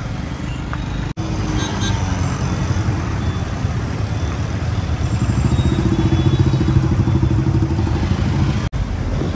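Street traffic with a motor vehicle engine running close by, a steady low hum that grows louder between about five and eight seconds in. The sound briefly drops out twice.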